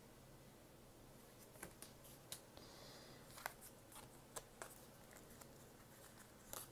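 Faint handling of oracle cards: a few soft clicks and taps as cards are set down and picked up, over quiet room tone.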